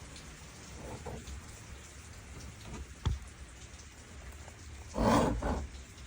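Handling noises from taking apart a pickup truck's dashboard: a sharp knock about three seconds in, then a louder, rougher noise in two quick parts lasting about half a second near the end.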